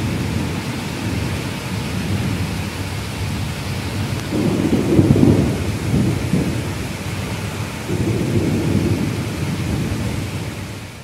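Heavy rain pouring steadily, with low rumbles of thunder swelling about halfway through and again near the end.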